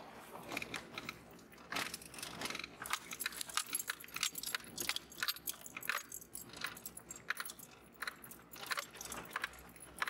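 A jeep rolling slowly along a dirt forest track, with irregular crunching and light rattling clicks, several a second.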